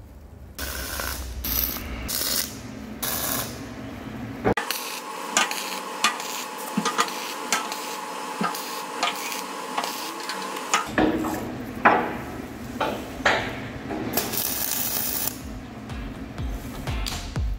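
Steel wear-plate strips being shifted and set into place against an excavator bucket's steel skin: irregular scraping, clicks and knocks of steel on steel.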